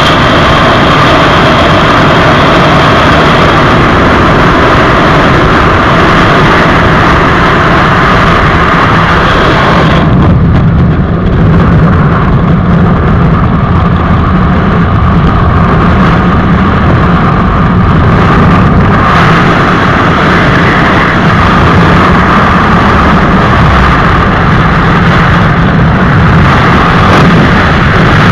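Loud, steady freefall wind rushing over a skydiver's camera microphone. About ten seconds in the hiss fades and the rush turns duller.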